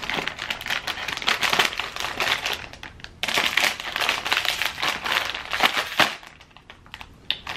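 Chip bag crinkling as it is handled and pulled open, a dense run of crackles with a short break about three seconds in, stopping about six seconds in.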